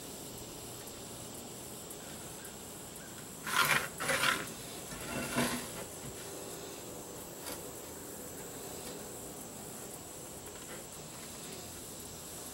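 Three short scratching strokes on a plywood sheet as a pencil is drawn along a steel framing square, two close together a little over three seconds in and a weaker one about a second later, over a faint steady hiss.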